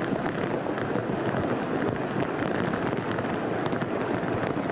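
Steady rushing noise of torrential rain and floodwater surging up out of the road, with scattered ticks of drops.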